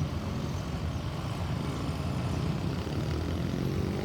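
Road traffic noise: vehicle engines running with a steady low rumble, and a pitched engine note rising near the end as a vehicle accelerates.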